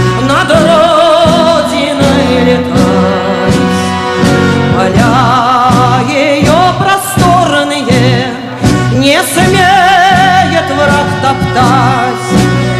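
A woman singing a Soviet wartime song with wide vibrato over loud backing music.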